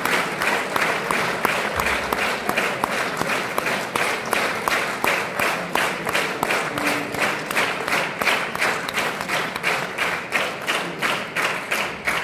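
Concert audience clapping in unison, a steady rhythmic beat of about three claps a second.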